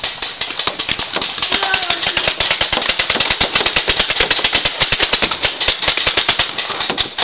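Rapid, dense popping of several game guns firing at once in a skirmish, heaviest from about three to six seconds in.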